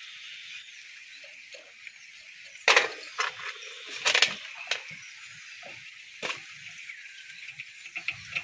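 Several sharp metallic clinks, a second or so apart, as a roller chain, sprocket and nut are handled in a power tiller's rotary chain case, the loudest about three seconds in, over a steady high hiss.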